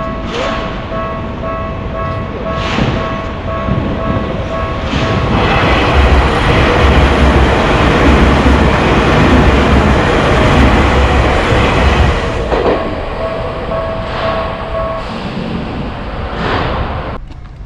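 Japanese level-crossing warning bell ringing in a steady repeating pattern as a Tokyu Oimachi Line train runs through the crossing. The train's loud rumble and wheel noise drown the bell from about five seconds in to about twelve. The bell stands out again after the train has passed and stops a couple of seconds before the end.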